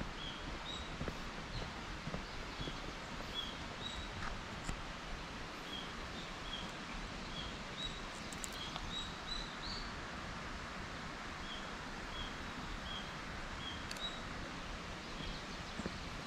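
A walker's footsteps on an asphalt road, with a bird's short high chirps repeating every second or so over steady outdoor background noise.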